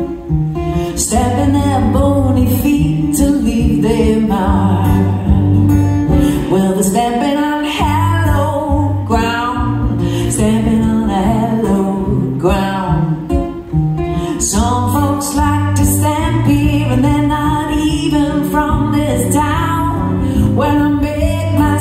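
A woman singing a song live into a microphone while playing an acoustic guitar, the guitar keeping a steady rhythm under the vocal line; there is a brief lull about two-thirds of the way through.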